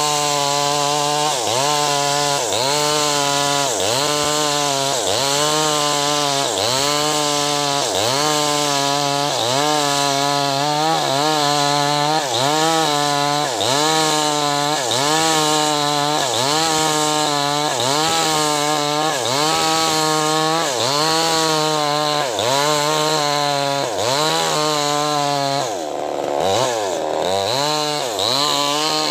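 Two-stroke chainsaw at full throttle ripping lengthwise through a jackfruit log. Its engine pitch sags under load and recovers about once a second. Near the end the engine drops lower for a moment, then picks up again.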